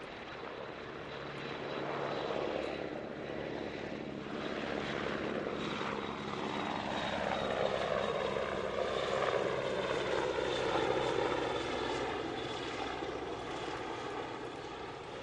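A pair of AgustaWestland MCH-101 (AW101) helicopters flying past low in formation: turbine whine and rotor noise build up, their pitch slides down as they go by, and the sound peaks and then fades as they move away.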